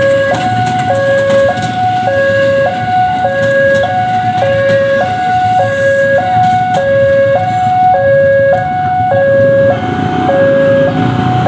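Railway level-crossing warning alarm: an electronic two-tone signal alternating high and low, a little over one pair a second, over steady traffic noise. It warns that a train is approaching the crossing.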